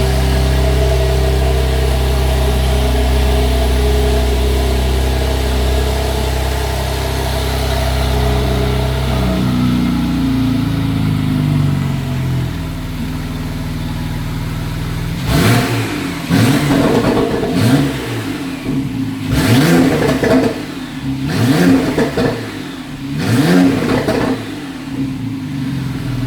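Porsche 911 Carrera T's 3.0-litre twin-turbo flat-six idling steadily, then, a little past halfway, revved in a quick string of short throttle blips, each rising and falling in pitch, before settling back to idle.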